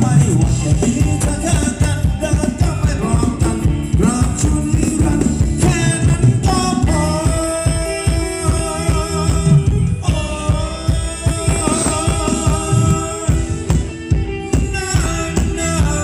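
Live band playing Thai ramwong dance music through loudspeakers, with a singer over a steady drum beat.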